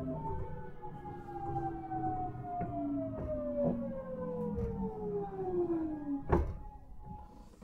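Nankai 1000 series train's GTO-VVVF inverter whining in falling pitch as the train brakes, under the low rumble of the running gear. The whine ends about six seconds in with a sharp clunk as the train comes to a stop, and it is quieter after.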